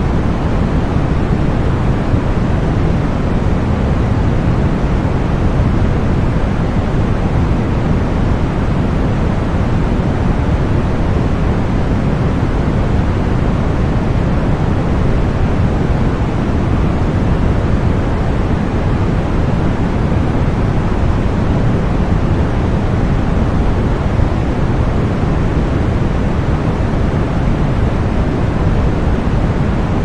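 Continuous synthetic white noise played as a tinnitus-masking sound, steady and unchanging, with most of its weight in the low end.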